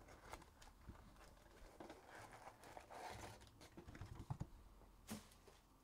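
Faint handling noises of foil-wrapped trading-card packs and their cardboard box: scattered soft taps and crinkles, with a few sharper taps near the end.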